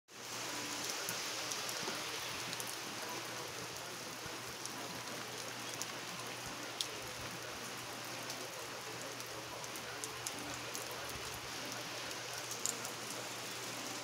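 Steady rain falling on leafy garden plants, with the sharp ticks of single drops landing close by every few seconds.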